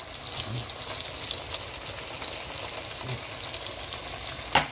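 Noodles and vegetables sizzling in a hot, steaming pan: a steady hiss with crackles that swells just after the start. A single sharp knock comes near the end.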